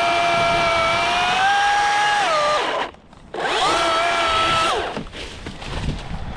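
Battery-powered chainsaw motor whining at a steady high pitch. It winds down and stops about three seconds in, then is triggered again, spins up to a higher pitch and winds down again about five seconds in.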